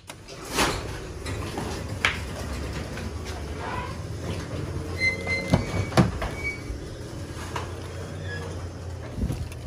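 Electric garage door opener running as the door goes up: a steady low rumble and rattle, with two sharp clunks a little past halfway.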